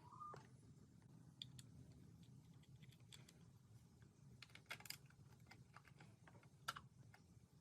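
Near silence with faint, irregular small clicks and taps, the clearest about five seconds in and again near the end. A bird chirps briefly at the very start.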